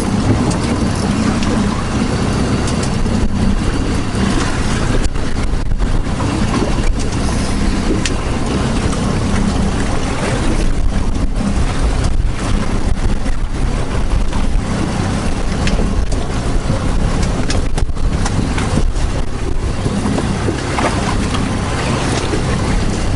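Steady wind noise buffeting the microphone on a small open fishing boat, with a low steady drone underneath.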